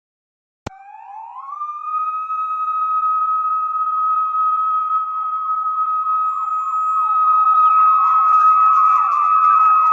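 Siren switching on with a click, its pitch rising for about a second and then holding one steady tone that grows louder, with a fainter rapid warble beneath it.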